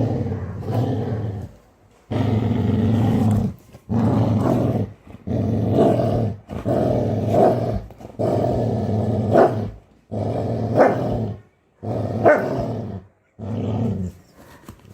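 Labrador growling, a series of about eight deep, lion-like growls, each a second or two long with short breaks between. A few of the later growls end in a sharper, higher note.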